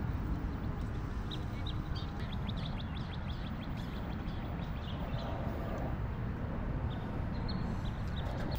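Small birds chirping, many short quick high calls repeating over a steady low rumble of outdoor background noise.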